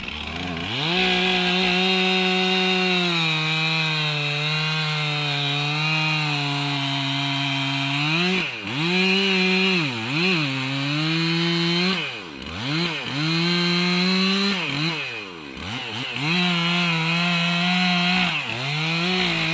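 Two-stroke chainsaw run at full throttle, boring into a standing tree's trunk for a felling cut. It revs up about a second in, holds steady, then drops in speed and picks back up several times in the second half as the throttle is eased and reopened.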